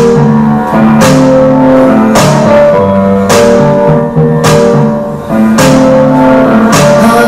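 Music played through an LG FH2 XBoom Handy portable speaker, with a strong beat about once a second under sustained notes.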